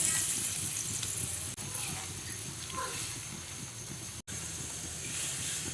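Pot of instant noodles cooking on a stove: a steady hiss of simmering liquid, broken by a brief cut about four seconds in.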